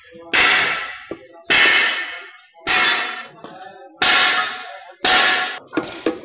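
Hammer blows on a screwdriver set against the hub of a loader's ZF transmission torque converter, working a washer loose; each blow is a sharp metal clang that rings on in the steel converter. Five evenly spaced blows about a second apart, then two quicker, lighter hits near the end.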